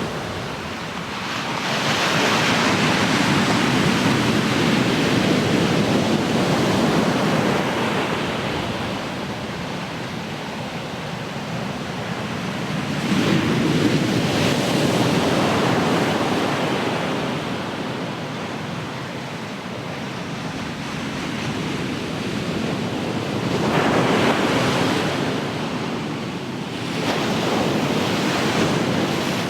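Ocean surf breaking on the shore: a continuous rushing wash that swells and fades with each wave, surging four times.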